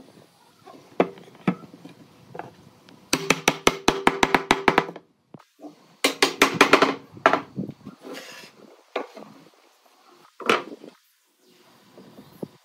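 Woodworking knocks and taps: two quick runs of sharp strikes, about seven a second, with single knocks before, between and after them.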